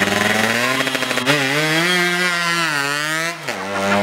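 Yamaha F1ZR (FIZ R) underbone's two-stroke single-cylinder engine revving: it runs steadily, climbs sharply about a second in, holds high with a wavering pitch for about two seconds, then drops back near the end.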